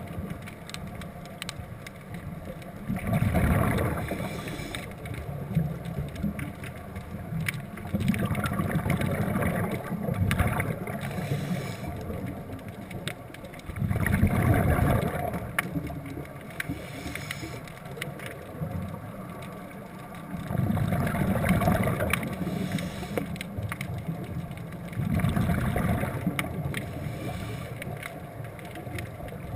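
Scuba diver breathing underwater through a regulator: exhaled bubbles rumble and gurgle in surges about every five to six seconds, over a steady underwater hiss.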